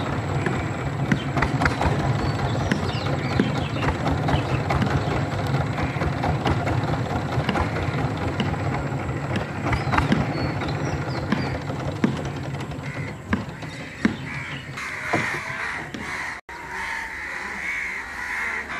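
Crows cawing repeatedly over a steady low engine drone. About fifteen seconds in the drone fades and a steady high-pitched buzz takes over.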